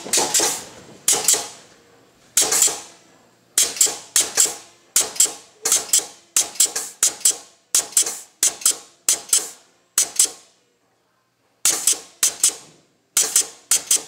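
Pneumatic crimping machine working in a rapid series of sharp clacks, each trailing off briefly, about two a second, with a pause of a second and a half near the end.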